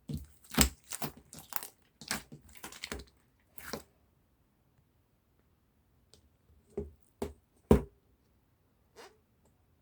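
Bubble-filled slime being worked by hand, giving sharp pops and crackles as the trapped air bursts: a quick run of them over the first four seconds, then a handful of scattered pops.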